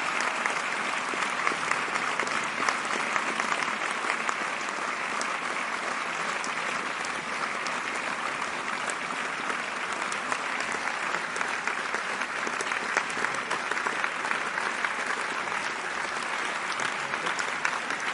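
Theatre audience applauding: a dense, steady clapping of many hands that keeps an even level throughout.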